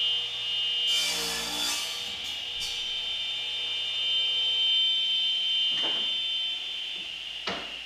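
Woodworking shop noise: a steady high whine under a brief rasping burst about a second in, then two sharp knocks near the end.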